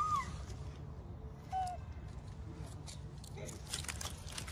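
Rhesus macaque giving short high coo calls: a rising-and-falling one at the start and a shorter falling one about a second and a half in. Near the end come scuffling and rustling as the monkey moves over the leaf-strewn stone.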